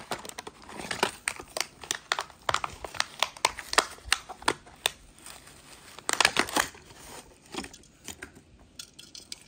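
A toy car's cardboard blister card being torn open, with the clear plastic blister crinkling: a rapid run of sharp crackles and snaps. It is densest in the first half, with a burst about six seconds in, then thins out.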